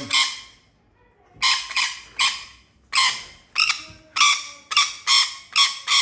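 A lorikeet screeching in a run of short, harsh squawks, about two a second after a brief pause, while restrained wrapped in a towel.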